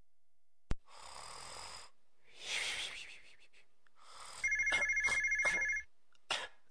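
A sharp click, two slow breathy sounds like a sleeper snoring, then a telephone ringing once for about a second and a half, an electronic two-tone trill.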